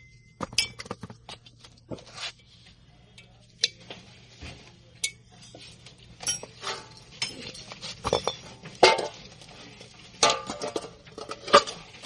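Metal clinking and knocking at irregular intervals, with short ringing after the sharper hits: steel tools and scrap from a refrigerator compressor being handled and struck, over a faint steady low hum.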